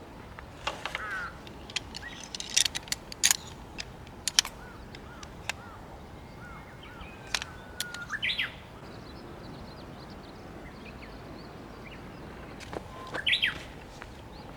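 Wild birds calling and chirping in short, scattered phrases over a soft steady background noise, with busier bursts of calls at the start, in the middle and near the end.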